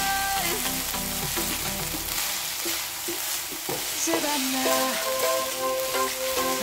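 Fried rice sizzling in a frying pan as a wooden spatula stirs and tosses it, with background music over it.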